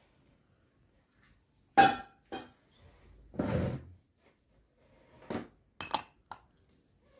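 Kitchenware knocking and clinking: a sharp clink with a short ring about two seconds in, the loudest sound, then a second knock, a brief scrape, and a few lighter clinks near the end.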